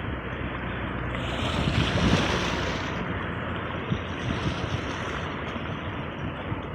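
Sea waves washing onto the shore, one wave swelling and breaking about two seconds in, then easing back to a steady wash.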